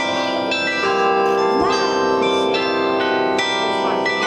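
Carillon bells playing a tune: struck bells sound one note after another, a new note every half second to a second, each ringing on under the next.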